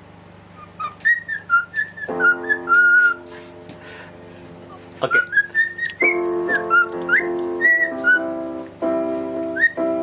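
A grey cockatiel whistling a tune in short phrases of gliding, rising and falling notes, with piano chords played along underneath from about two seconds in.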